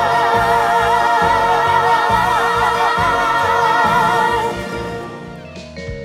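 Show-tune finale: singers holding one long note with vibrato over the band. The voice stops about four and a half seconds in and the band plays on, quieter, with drums.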